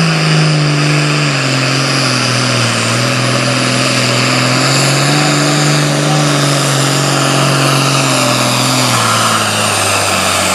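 Super farm pulling tractor's diesel engine running hard under load, its pitch sagging slowly as the load builds, then beginning to fall off steeply at the very end.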